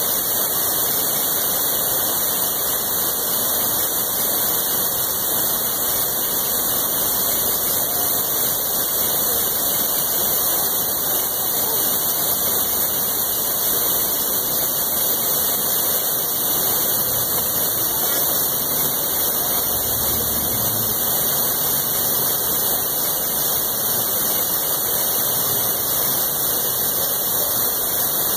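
Water pouring over a low dam wall into a stream, a steady unbroken rushing.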